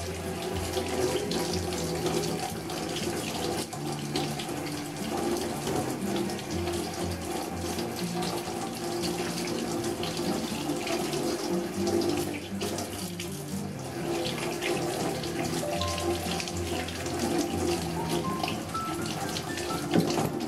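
Water running from a tap into a sink and splashing over hands as body scrub is rinsed off them.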